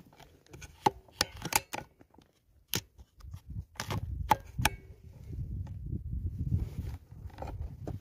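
Handling noise from an air rifle with a camera mounted on its scope: a series of sharp clicks and knocks, followed by a low rumble of rubbing and bumping against the microphone.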